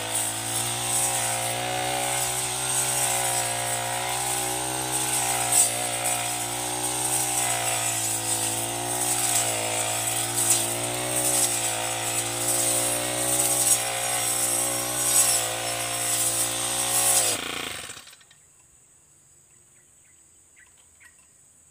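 Backpack four-stroke brush cutter running under load, its circular saw blade cutting through tall grass with crackling and swishing, the engine pitch wavering slightly with each swing. About 18 seconds in the engine cuts off suddenly, leaving only faint insect chirring.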